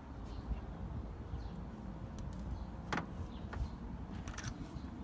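Low steady outdoor rumble with one sharp click about three seconds in and a few lighter clicks soon after, as an overfender panel is held and shifted against a car's rear quarter panel.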